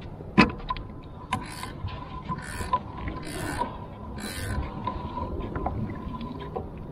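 Water splashing and sloshing in a few short bursts beside a kayak, the first coming about a second and a half in. A single sharp click, like gear being handled on the kayak, comes about half a second in.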